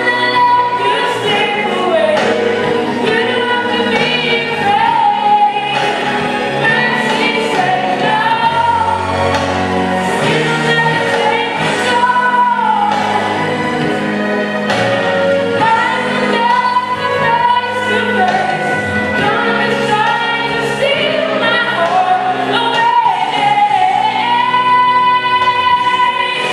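A gospel song: several voices singing together over a continuous instrumental backing.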